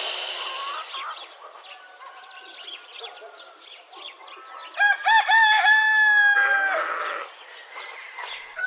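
A circular saw cutting wood stops about a second in. About halfway through, a rooster crows once: a few short rising notes, then one long held note that drops away at the end.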